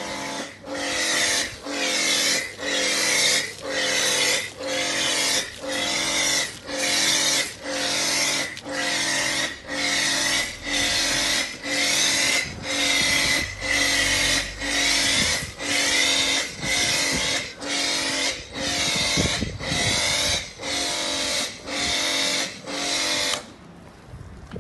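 Pressure washer running through a snow foam lance, the motor pulsing in regular surges about four times every three seconds over the hiss of the spray. It cuts off suddenly about a second before the end.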